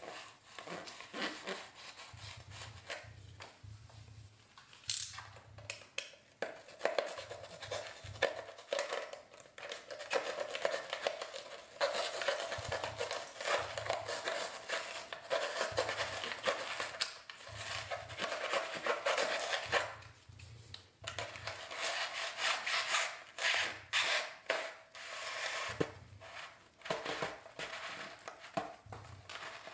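Rigid plastic installation conduit being pushed and worked through the foam filling of a fire-stop cable box, rubbing and scraping irregularly, with scattered knocks. The scraping grows busier after the first few seconds.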